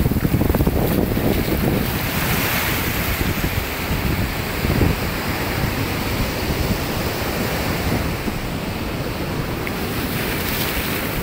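Sea waves breaking and washing in a continuous rush, with wind buffeting the microphone.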